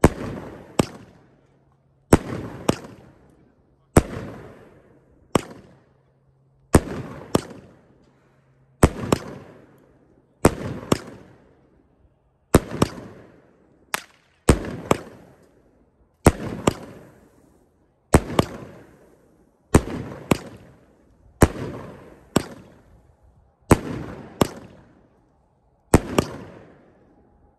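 A large consumer fireworks cake firing shot after shot of colored thunder: loud bangs about every second or two, each trailing off.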